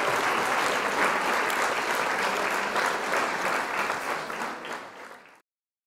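Applause from a crowd, dense clapping that thins and fades, then cuts off abruptly about five seconds in.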